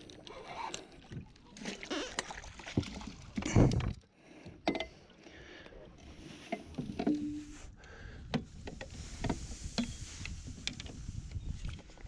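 Scattered knocks and bumps in a small fishing boat over rustling handling noise, while a hooked catfish is being brought in. The loudest knocks come about three and a half and five seconds in.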